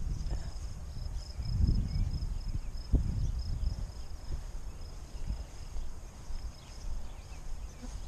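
A steady, high insect trill, with irregular low thuds and rumbles from footsteps and handling on a body-worn microphone.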